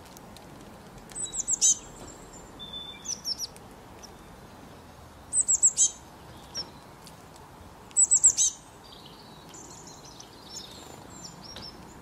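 Small songbird calling: short quick runs of three or four high, falling chirps, four times, then a softer, longer twittering near the end, over a faint steady hiss.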